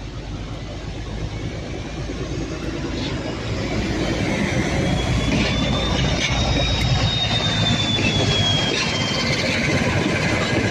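Preserved Class 14 diesel-hydraulic and Clayton Class 17 diesel locomotives running coupled past at low speed, their engines growing louder as they approach. A thin wheel squeal rises and falls from about five to nine seconds in, and the wheels click a few times over the rail joints.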